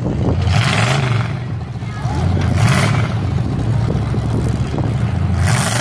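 Demolition derby cars' engines running and revving, pitch rising and falling, with bursts of rushing noise about a second in, around three seconds and near the end.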